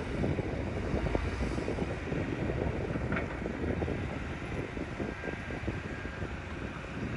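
Heavy diesel earthmoving machinery, a bulldozer and dump trucks, running with a steady low rumble, with wind noise on the microphone.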